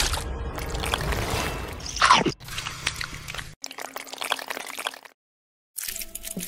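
Added sound effects of wet mud and water: squelching, dripping and splashing. About two seconds in there is a louder swoop falling in pitch, and the sound stops briefly near the end.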